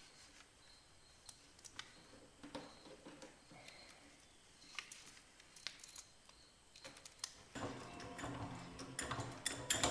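Scattered light clicks and taps of hand work on the truck's parts, getting louder and busier with more clatter near the end.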